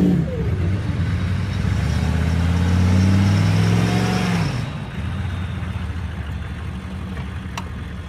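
Pickup truck engine revving hard under load, pulling a stuck vehicle out of mud on a tow strap, then dropping off about four and a half seconds in to a quieter, lower engine drone.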